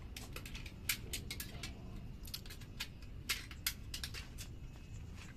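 Scattered light clicks and taps of hand tools and small metal parts being handled at a drive shaft's universal joint, irregular and a few a second.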